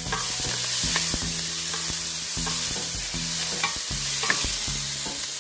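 Chopped onion sizzling in hot oil in a frying pan while a utensil stirs it, with irregular clicks and scrapes against the pan.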